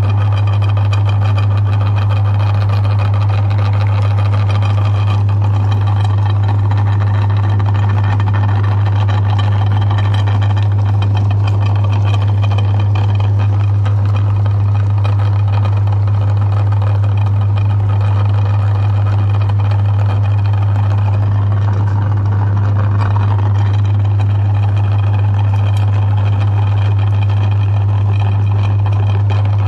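Meat grinder's motor running, a loud steady hum with a churning rush over it.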